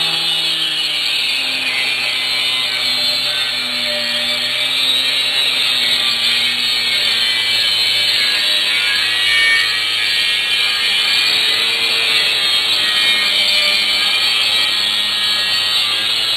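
Angle grinder cutting into the steel top of a beer keg: a continuous high grinding noise over the motor's hum, whose pitch wavers as the disc loads and frees up in the cut.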